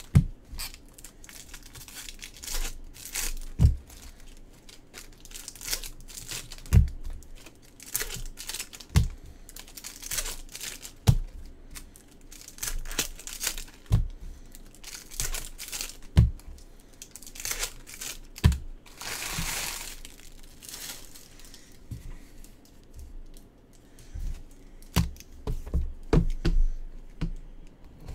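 Foil trading-card pack wrappers being torn open and crinkled by hand, with irregular sharp crackles and taps as packs and cards are handled, and one longer rip about two-thirds of the way through.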